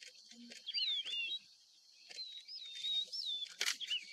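A bird singing in gliding, wavering whistles, in two phrases, the second longer. A sharp click near the end is the loudest sound.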